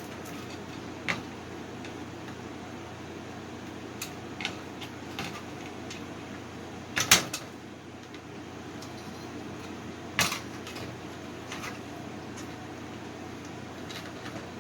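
Scattered clicks and knocks of tools and small parts on a home theater receiver's chassis as its screws are taken out and its connectors unplugged. The loudest are a quick pair about seven seconds in and another knock about three seconds later, over a steady low hum.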